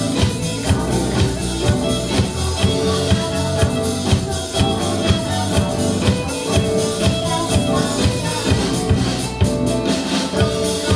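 Live band playing through a club PA, heard from within the audience, with a drum kit keeping a steady beat about twice a second.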